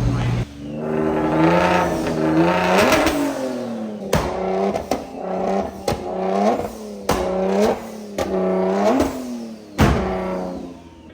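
Car engine free-revved in a series of about eight quick throttle blips, each climbing and falling back, with sharp pops or cracks between several of the revs, ending on a fall back toward idle.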